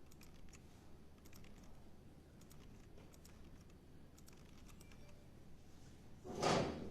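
Computer keyboard being typed on in scattered, light keystrokes and clicks. Near the end there is one brief, louder rush of noise.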